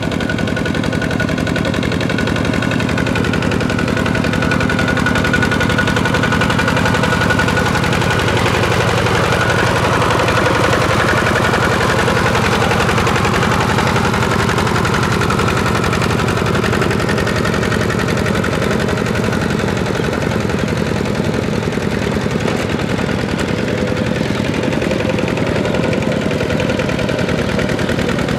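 Kubota walking tractor's single-cylinder diesel engine running steadily with a fast, even putt-putt while it pulls a plough through paddy mud.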